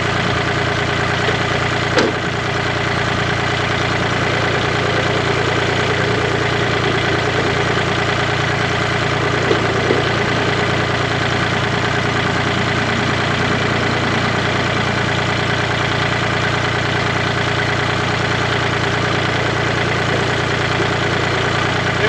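Gasoline chainsaw powerhead driving a Turbo Sawmill attachment, running steadily as the mill head is pushed along a pecan log. There is a single sharp knock about two seconds in.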